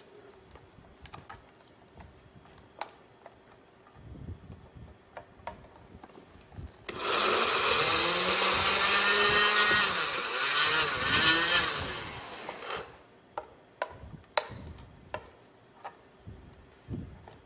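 A regular countertop blender runs for about six seconds, starting about seven seconds in, its motor pitch dipping and rising as it chops a thick mix of whole dates, almonds, walnuts and seeds. Light knocks and taps come before and after it.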